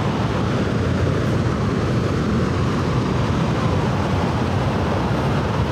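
Steady rumbling noise of wind buffeting the microphone over waves breaking on the beach.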